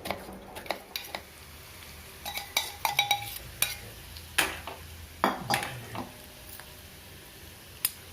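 A metal spoon stirring in a kadai, scraping and clinking against the pan in irregular strokes, one of them ringing briefly. Underneath is a low sizzle of onion, cumin and curry leaves frying in oil for a tempering.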